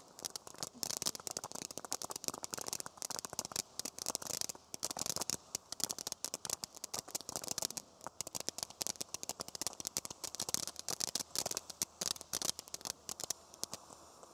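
Lotus Flower consumer fireworks fountain burning, its spray of sparks giving off a dense, fast, continuous crackle of tiny pops.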